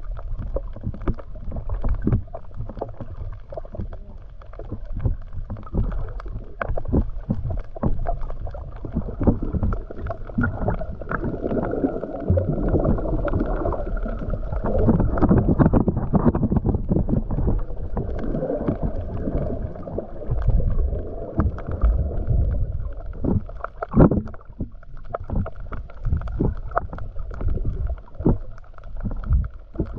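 Muffled underwater sound from a submerged camera: water swishing and churning around it, with many small knocks and clicks, heaviest around the middle.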